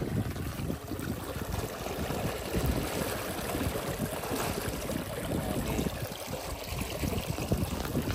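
Water rushing and churning steadily through a narrow gap cut in an earth bank between ponds.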